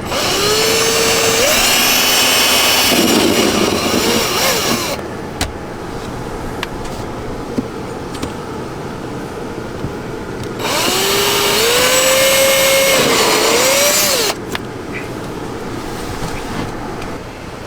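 Power drill drilling holes in a dashboard panel, in two runs of about four to five seconds each. In each run the motor's pitch rises as it spins up, then holds steady.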